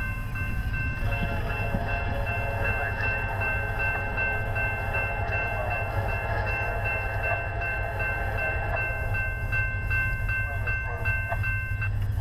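CSX freight train approaching out of sight: a steady low locomotive rumble, with long steady high tones that cut off near the end.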